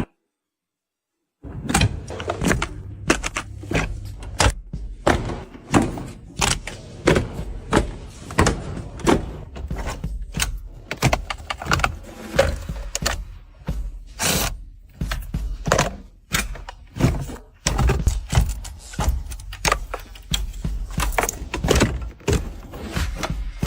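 A run of irregular knocks and thuds, a few each second, starting after about a second and a half of silence.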